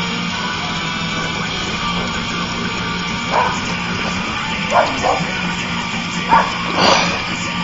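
Guitar-driven metal music playing, with a dog barking several times, short sharp barks that come in the second half.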